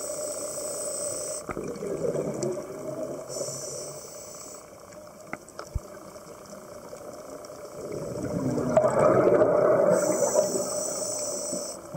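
Scuba diver breathing through a regulator underwater: hissing inhalations alternate with gurgling rushes of exhaled bubbles. The loudest burst of bubbles comes about eight seconds in.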